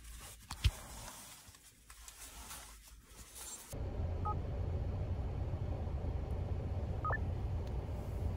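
Quiet car interior with a single sharp click under a second in, then, from a cut a little over a third of the way through, the steady low rumble of a car's cabin on the move. Two brief electronic beeps sound over the rumble.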